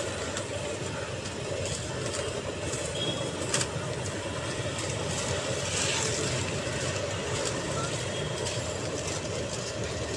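Steady street-traffic din with vehicle engines running, and one short sharp click about three and a half seconds in.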